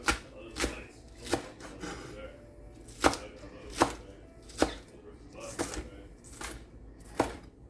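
Knife chopping scallions on a cutting board: about ten sharp, evenly paced strikes, a little more than one a second.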